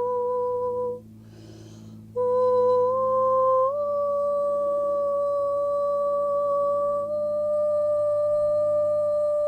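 A woman's voice toning a long, steady, pure-sounding hum as sound healing. It breaks off about a second in for a breath, then comes back and steps up in pitch twice before holding one note.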